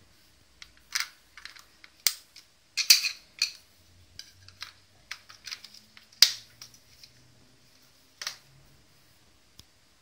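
Scattered sharp plastic clicks and short scrapes from handling a UKB-500 mini wireless keyboard as its battery cover is fitted back over the Li-ion battery and pressed shut. The loudest click comes about six seconds in.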